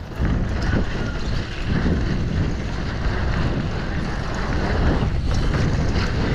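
Wind buffeting the microphone of a GoPro HERO11 Mini on a mountain bike ridden at speed: a loud, steady low rush that comes up suddenly at the start, with a few knocks from the bike over rough ground.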